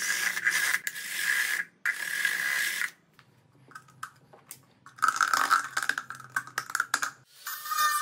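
Cordless drill with a small bit running in two short bursts, about two seconds and then one second long, boring holes through a thin clear plastic bottle. After a quieter pause with small ticks, another couple of seconds of power-tool whirring.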